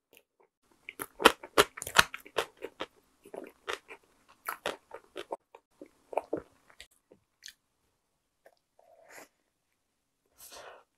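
Close-miked chewing of a soft Korean salad bread roll (사라다빵) with jam: a quick run of sharp, wet mouth clicks, busiest in the first six seconds, thinning out, then another bite near the end.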